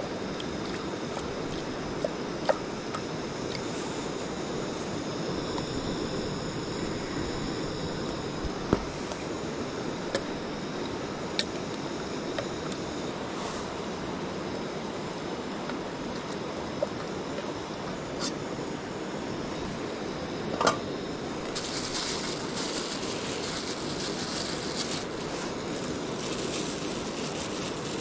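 Steady rush of a rocky mountain stream flowing over stones, with a few sharp clicks and knocks scattered through, and crinkling plastic bag in the last quarter.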